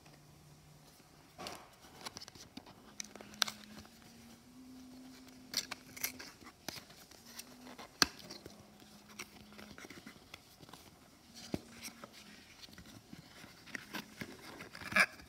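Cardboard puzzle-cube box being handled and turned over: scattered light taps, clicks and paper rustles, with a sharper knock about eight seconds in and another near the end.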